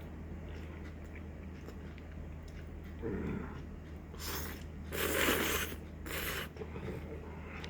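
Eating sounds close to the microphone: a short low chewing or mouth noise about three seconds in, then three short hissy bursts of slurping or crunching about four to six and a half seconds in, over a steady low hum.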